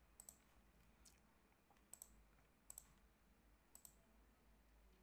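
Faint computer mouse clicks, about five spread over a few seconds, some in quick pairs, against near silence.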